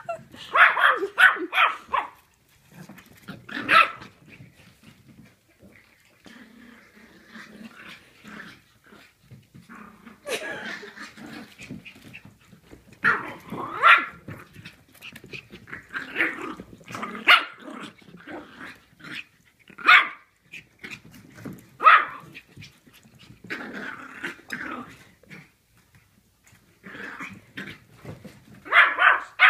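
Young puppy barking in play: short, high yappy barks in quick clusters every couple of seconds, with quieter gaps between.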